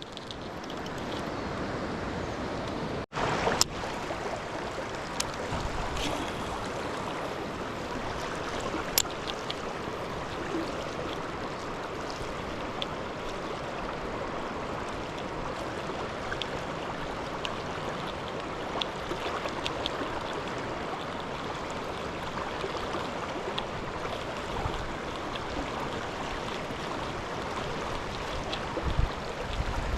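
River water flowing steadily, with a few faint ticks over it. The sound cuts out for an instant about three seconds in.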